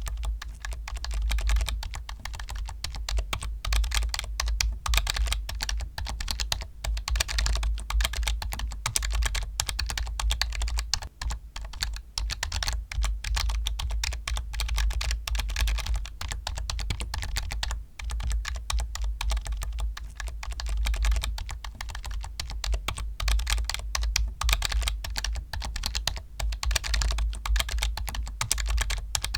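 Computer keyboard typed continuously and fast, a dense stream of key clicks with short pauses, over a steady low hum.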